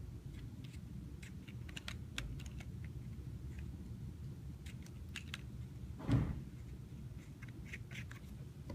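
Small scattered clicks and taps of a pushbutton switch and its plastic cap and parts being handled and screwed together, with one louder knock about six seconds in, over a steady low hum.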